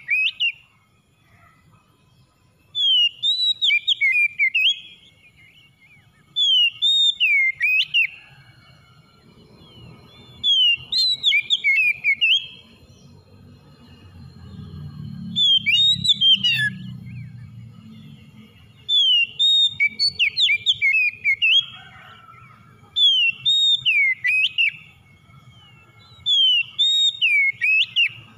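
Oriental magpie-robin singing loud whistled song phrases, about seven of them, each roughly two seconds long and repeated every three to four seconds. A low rumble swells underneath around the middle.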